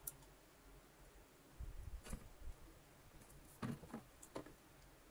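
Faint handling noise: a few light clicks and soft knocks as a silicone sealant cartridge is worked along the inside seam of a Hoover Junior vacuum-cleaner hood.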